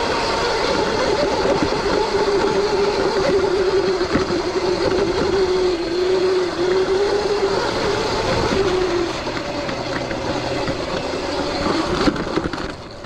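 Stock Surron X electric dirt bike riding a dirt trail: the electric motor and chain drive whine with a pitch that wavers as the speed changes, and the whine fades out about nine seconds in. Under it runs a steady rush of wind and trail noise.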